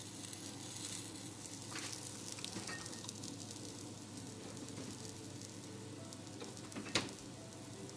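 Egg rolls sizzling and crackling on the hot plate of a Dash mini griddle, with one sharp click about seven seconds in.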